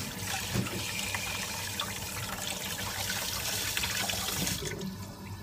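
Kitchen tap running steadily, its stream splashing over hands rinsing pork bones in the sink, with a few small knocks. The flow stops about four and a half seconds in.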